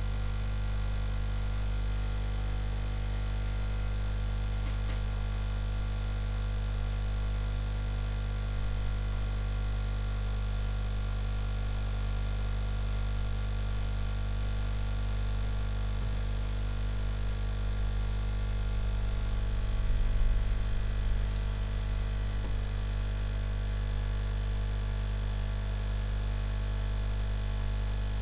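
Steady electrical mains hum, with a few faint ticks.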